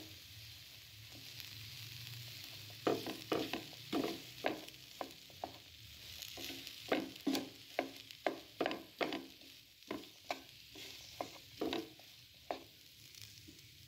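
A slotted wooden spatula stirring and mashing potato filling in a nonstick frying pan over a faint frying sizzle. From about three seconds in, it taps and scrapes against the pan two or three times a second until near the end.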